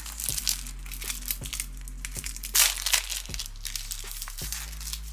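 Clear plastic wrapper crinkling and rustling as a sheet of clear plastic cards is handled and pulled out of it. The rustling is irregular and is loudest about two and a half seconds in.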